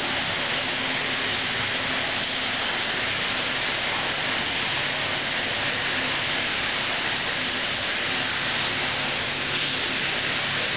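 Steady hissing background noise of an aquarium hall, even throughout with no distinct events.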